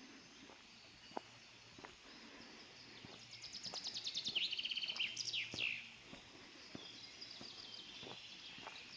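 A songbird sings faintly over quiet woodland background: about three seconds in, a rapid run of repeated high notes, dropping to a lower run and ending in a few quick downward sweeps, followed by a fainter trill near the end. Faint scattered ticks run underneath.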